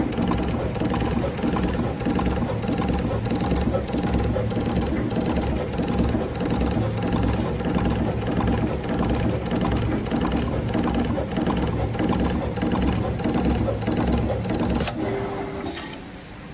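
Automatic PVC label dispensing machine running: its multi-head gantry whirs with a regular ticking as the needle heads travel over the mold dispensing liquid PVC. About a second and a half before the end the motion stops with a short hum, and the sound drops to a much quieter background.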